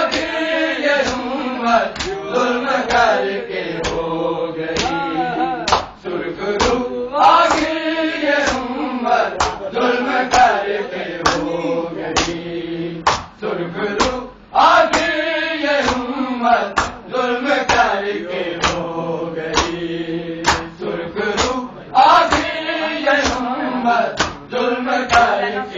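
Group of men chanting a Shia noha together, with the regular beat of matam: open-handed slaps on bare chests landing in a steady rhythm under the singing.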